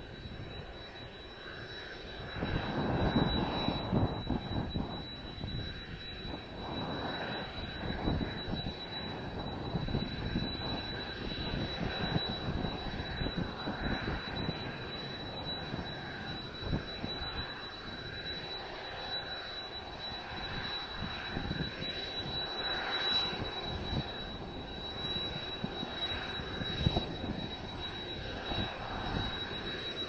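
Kawasaki T-4's twin F3 turbofan engines idling as the jet trainer taxis, with a thin steady high whine over a low rumble. The rumble gets louder about two and a half seconds in and swells and fades unevenly, with gusty wind buffeting the microphone.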